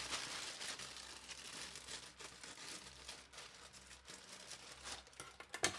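Plastic packaging rustling and crinkling as it is handled and opened, with a louder sharp crackle near the end.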